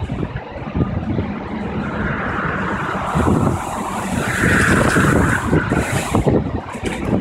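Typhoon-force wind gusting hard and buffeting the microphone, a continuous rumbling rush. A higher-pitched rushing comes up twice, about two seconds in and again around four to five seconds in.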